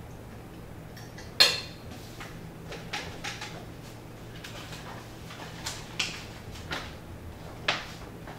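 A metal fork clacks down onto a ceramic plate about a second and a half in, the loudest sound, followed by softer clicks and rustles as a paperback book is picked up and handled, over a low steady hum.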